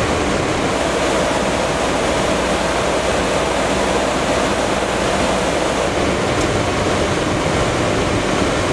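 Steady rushing noise of airflow and engines on the flight deck of a P-8A Poseidon on short final at night, with a faint steady hum running underneath.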